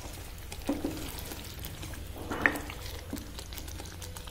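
Wooden spatula stirring thick dal in a pan, with a few soft knocks against the pan about a second in, midway and near three seconds, over a low steady hum.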